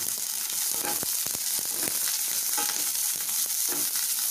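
Sliced onion and green capsicum sizzling steadily in hot oil in a non-stick kadhai on high flame, stirred with a wooden spatula that scrapes and taps against the pan now and then.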